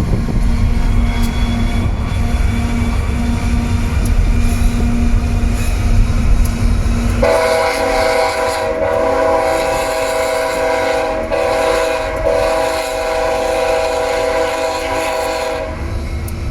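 GE diesel locomotive with a low rumble and a steady hum, the sound the uploader presents as its dynamic brake grids at work. About seven seconds in, a multi-tone train horn starts sounding and holds for about eight seconds, with two brief breaks, before stopping.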